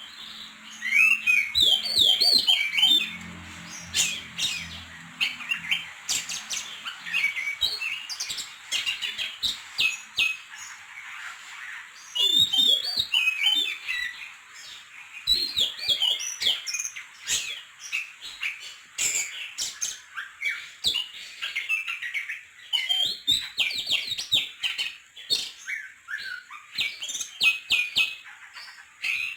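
Oriental magpie-robin (kacer poci) singing: quick bursts of short chirps, whistled slides up and down, and sharp clicks, with brief pauses between phrases.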